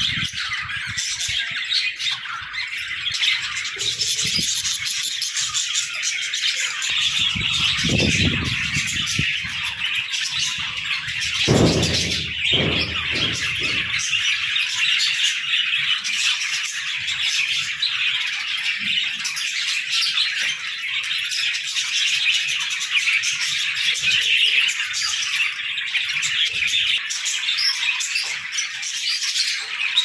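A flock of budgerigars chattering, chirping and squawking without a break, with a few short low thumps about a third of the way in.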